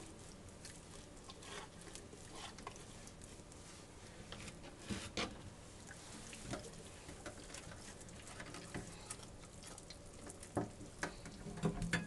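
Faint, scattered soft taps, squishes and rustles of hands stuffing herbs and aromatics into a raw turkey's cavity and shifting the bird on its metal roasting rack, with a few sharper knocks about five seconds in and near the end.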